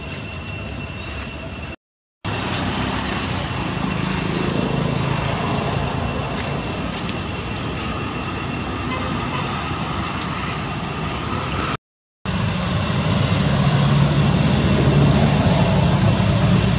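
Steady low engine hum of road traffic, growing louder after about twelve seconds, with a thin steady high whine over it. The sound cuts out completely for a moment twice.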